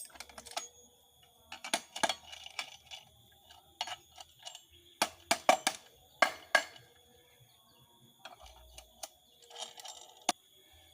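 Sharp metallic knocks and clinks, irregular and some in quick clusters, from the steel pipe and hand tools of a manual well-drilling rig.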